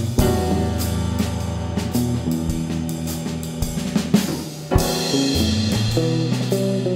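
Background music with a drum kit playing over sustained low bass notes. A cymbal crash comes about five seconds in.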